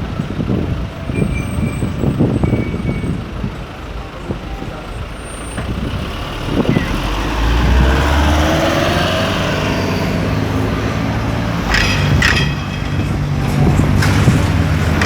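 Busy street traffic: a heavy road vehicle's engine grows louder and runs past from about halfway in, with other motor traffic and a few voices around it, and a couple of short sharp hisses or clatters near the end.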